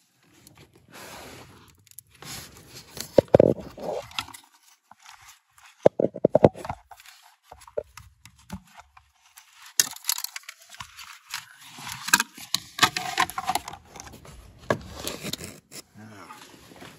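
Irregular clicks, knocks and scraping from hands and tools working on parts behind a car's dashboard, around the heater blower motor and its wiring connector. The loudest knocks come about 3 and 6 seconds in, with a quick run of clicks at about 6 seconds.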